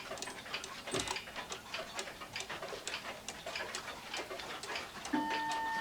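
Small one-day hunter-style cuckoo clock ticking quickly, a pendulum movement running. About five seconds in, a few steady musical tones start over the ticking.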